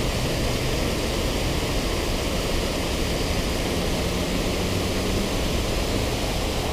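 Water spilling over a low concrete river weir: a steady, unchanging rush.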